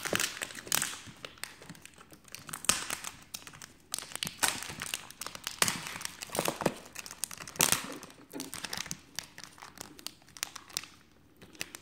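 Crinkling and crackling of plastic film and tape as fingers handle and lift at the edges of a MacBook Pro's unglued battery cells, in irregular rustles with small ticks, easing off near the end.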